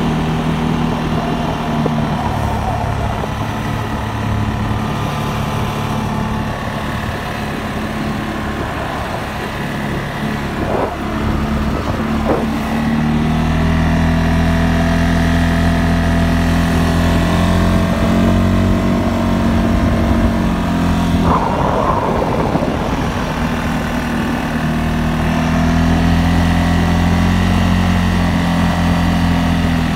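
CFMOTO CFORCE 600 ATV's single-cylinder, liquid-cooled engine running steadily under way on a paved road. The engine gets louder about halfway through as the ATV picks up, with a couple of brief knocks just before.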